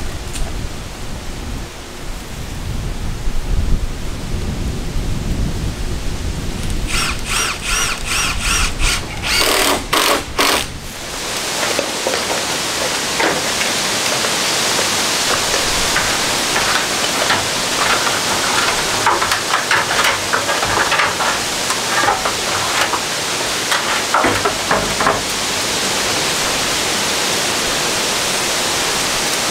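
Wind rumbling on the microphone, broken a few seconds in by a power tool running in short bursts. After that comes a steady rushing of wind with a few faint knocks.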